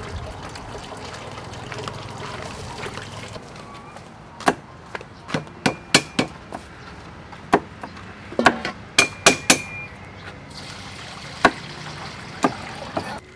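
A kitchen knife chopping water spinach on a wooden cutting board: a run of sharp, uneven chops, with a couple of ringing metal clinks among them. Near the end, water is poured from a pot into a steel basin.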